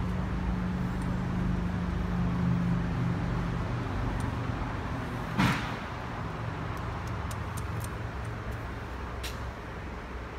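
Steady low workshop hum with one sharp clink about halfway through and a few light clicks afterwards, from a screwdriver and its bit being handled while bolts are driven into a steering column.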